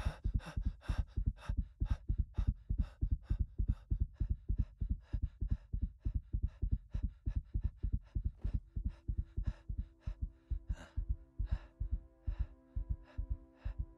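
Racing heartbeat, a fast steady run of low beats, the sound of a panic attack. A soft held music chord comes in under it about two thirds of the way through.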